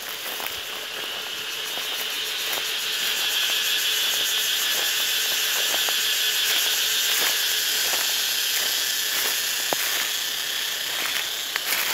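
Shallow creek water rushing and rippling in a steady hiss, growing louder from about three seconds in. A few light clicks near the end.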